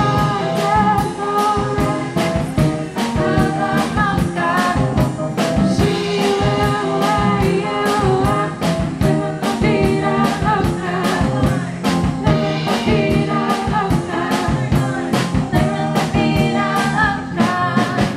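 A group of young singers performing a song live into microphones, backed by a band with a steady drum beat.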